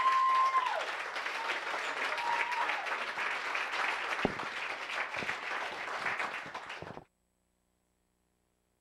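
Audience applauding after a comedy set, with a piercing whistle at the start and a shorter whistle about two seconds in. The applause cuts off suddenly about seven seconds in.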